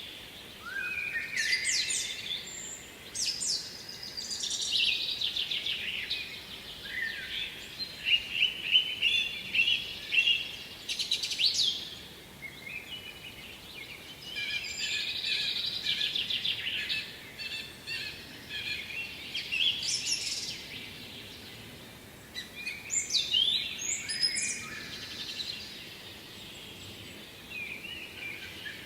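Songbirds singing, several overlapping songs of quick chirps and rapid trills, coming in phrases a few seconds long with short lulls between them.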